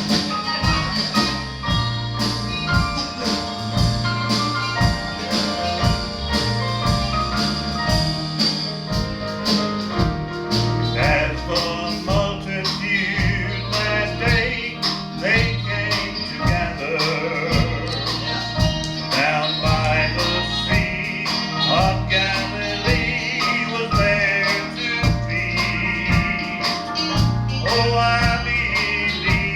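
Gospel music with a steady bass and drum beat, with singing coming in about ten seconds in.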